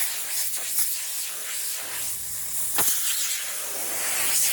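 Steady hiss of a compressed-air blow gun blowing dust out of a dirty engine air filter, running without a break through the whole stretch.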